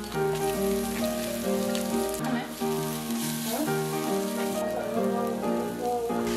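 Minced garlic and sliced red chillies sizzling in oil in a nonstick frying pan, stirred with a spatula, the sizzle growing brighter about two seconds in. Background music with a melody plays over it.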